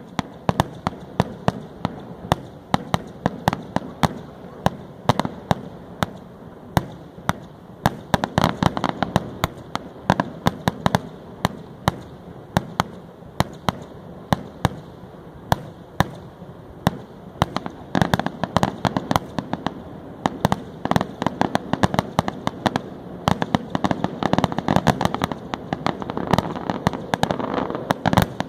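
Aerial fireworks display: a continual run of sharp bangs and crackling pops as shells burst, coming thickest in spells about eight, eighteen and twenty-five seconds in.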